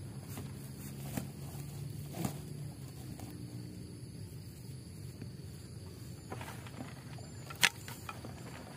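Footsteps and rustling on grass over a low steady hum that fades after a few seconds. Near the end comes one sharp clack as a bundle of bamboo stakes is dropped on the ground.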